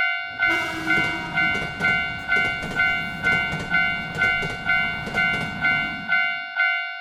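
Japanese level-crossing alarm bell ringing in a steady 'kan-kan' at about two strikes a second while a train rumbles past with rail clicks. The train noise starts just after the bell and cuts off suddenly near the end, leaving the bell alone.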